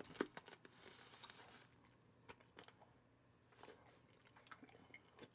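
Faint mouth sounds of chewing a gummy together with popping candy, with scattered small crackles and clicks as the candy pops only weakly, which the eater suspects is because it got too warm.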